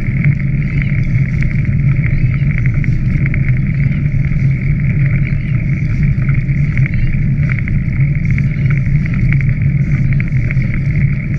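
Steady loud rumble of wind and movement noise on the microphone of a camera travelling fast along a riverbank, with light clicking and rattling throughout.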